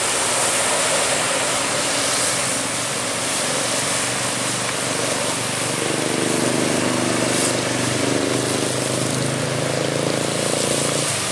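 Bus engine running with steady road noise. About six seconds in, a steady low engine drone grows stronger.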